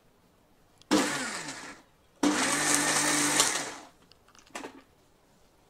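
Electric mixer grinder pulsed twice while grinding chutney: a short burst about a second in, then a longer run of about a second and a half. Each time the motor's pitch falls away as it spins down after release.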